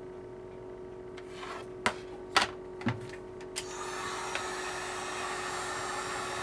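Heat gun running with a steady hum, warming the tablet to soften the digitizer's adhesive. A few sharp clicks and knocks of tools being handled come between about two and three and a half seconds in. After that the blowing noise gets louder and stays up, as the gun is turned up or brought closer.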